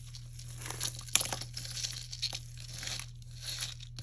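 Costume jewelry being handled on a tabletop: rustling with scattered small clicks of chains and beads, one sharper click about a second in, over a low steady hum.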